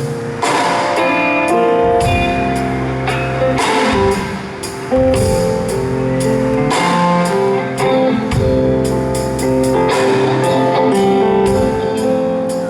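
Live band playing an instrumental jam: guitar over a steady drum beat and bass.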